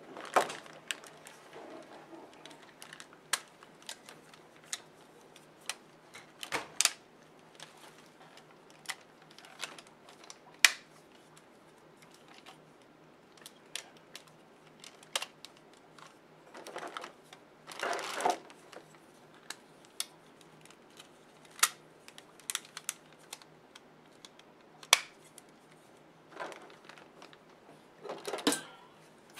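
Hard plastic parts of a BakurenOh (Blizzard Force Megazord) robot figure being handled and fitted at the connector joints: scattered sharp clicks and taps at irregular intervals, with a couple of brief rustling stretches.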